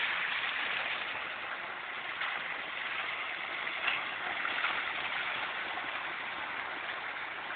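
Pumped water gushing from an outlet pipe into a small pool, a steady rushing and splashing with a few louder splashes.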